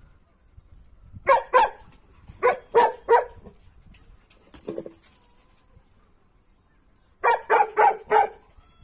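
Tibetan mastiff barking in short bursts: two barks, then three, a single lower bark, then four quick barks near the end.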